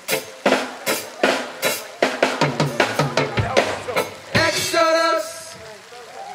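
Live rock band's drum kit playing a fill of snare and drum hits that quicken in the middle, with a brief sustained note from the band about four and a half seconds in that then dies away.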